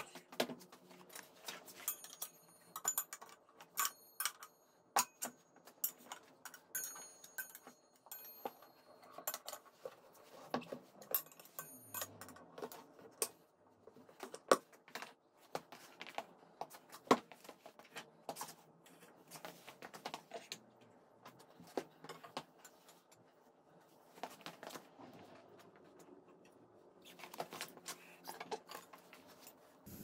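Scattered clicks, knocks and metallic clinks of hands and tools working a tire onto a motorcycle's alloy wheel and fitting the wheel into the front fork, a few of the strikes ringing briefly.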